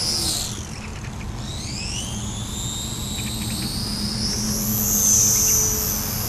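RC model airplane's motor and propeller whining in flight overhead, on a power check of a new motor. The pitch drops about half a second in, then climbs steadily over the next few seconds and stays high near the end.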